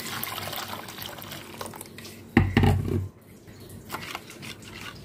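Water pouring from a plastic jug into a plastic bowl of yogurt and gram-flour mixture, thinning it for kadhi. About two and a half seconds in comes a loud heavy thump, then a spoon stirs the thin mixture with light clicks against the bowl.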